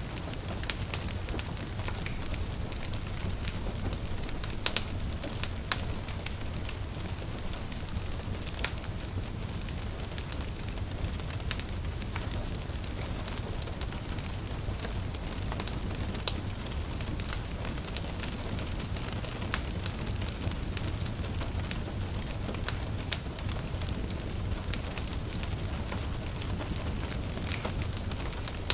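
Wood fire crackling in a fireplace, with frequent sharp pops and snaps over a steady low rumble, and gentle rain pattering on a window.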